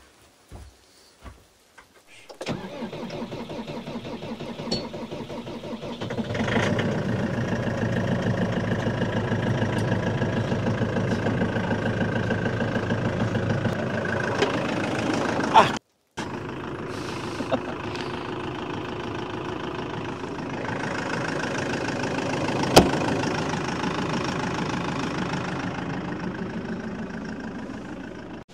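An engine starts about two and a half seconds in and then runs steadily, getting louder a few seconds later. The sound cuts out for a moment about halfway through, then carries on running steadily.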